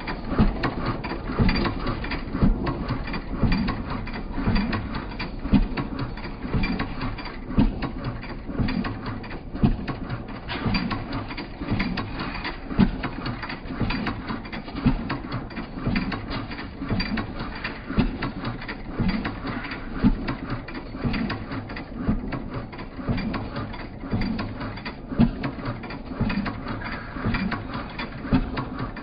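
Continuous mechanical clicking and rattling, like a ratchet or gear train, with low knocks recurring about once a second.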